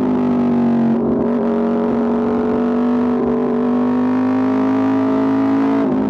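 Aprilia RSV4 RR's V4 engine running through an Austin Racing exhaust, holding a steady pitch with brief dips about a second in and near the end.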